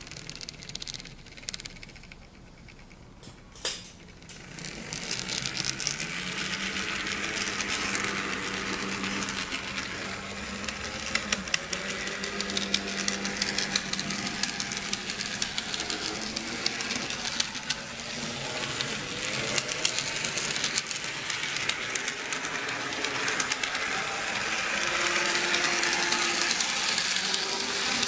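N scale Bachmann DDA40X locomotive chassis running under its own motor on 3D-printed replacement axle gears: a steady whir and hiss thick with fine clicking and rattle from the gears and wheels on the rails. It is quieter for the first few seconds and gets louder about four seconds in, as a low hum rises in pitch.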